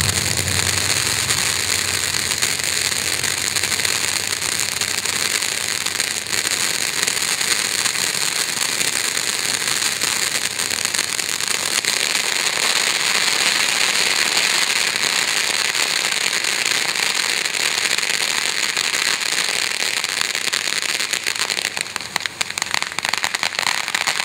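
Pyro Demon "Amazing Fountain" consumer firework fountain spraying sparks with a loud, steady hiss and crackling. Near the end it briefly drops, then crackles more densely.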